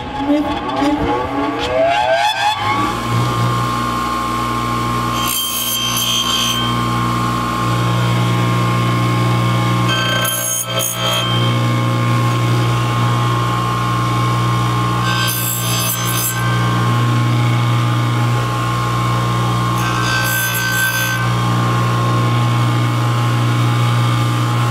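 Ryobi 6-inch bench grinder with a Scotch-Brite wheel, winding up to speed over the first couple of seconds and then running with a steady hum. Four times, about five seconds apart, a metal counterweight is pressed against the wheel for about a second, giving a scratchy rubbing sound as the drilled hole is deburred.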